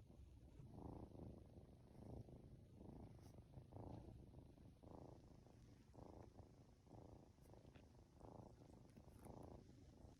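A Norwegian Forest Cat kitten purring softly and steadily, swelling with each breath a little more than once a second: the content purr of a kitten being stroked as it drifts off to sleep.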